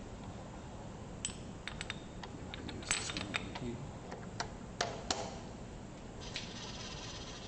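Scattered light metal clicks and clinks of steel parts being handled at a Kurt milling-machine vise as a part is set in the jaws and the vise is tightened. A short hiss comes near the end.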